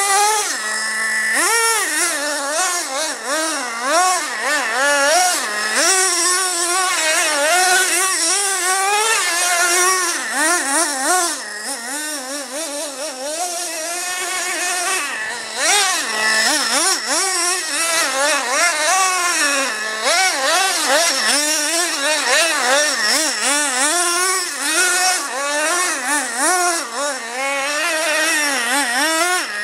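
Traxxas Revo's 2.5 cc two-stroke nitro engine revving up and down with quick, repeated blips of throttle, the pitch rising and falling about once a second and dropping back to a steady idle a few times.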